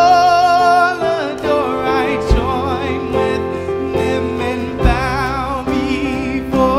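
Music: a slow worship song, one voice singing with vibrato over sustained accompaniment, opening on a long held note.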